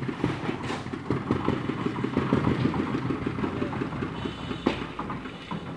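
Small engine running steadily with a fast even beat, with one sharp knock near the end.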